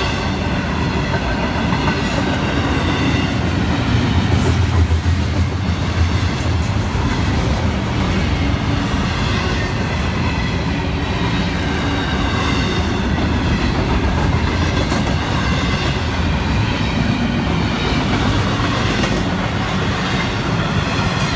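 Double-stack intermodal well cars of a freight train rolling past, steel wheels running on the rails. The noise is steady, with a louder low stretch about four to six seconds in.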